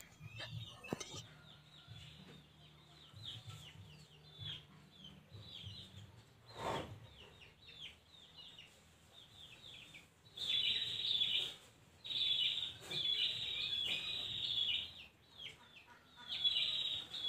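Birds chirping: rapid runs of short, high, falling chirps, louder in bursts over the second half.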